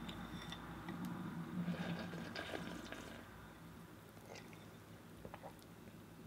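A person chewing Cheerios with milk close to the microphone: wet, irregular crunching and small clicks, busiest in the first half and fainter toward the end, over a steady low hum.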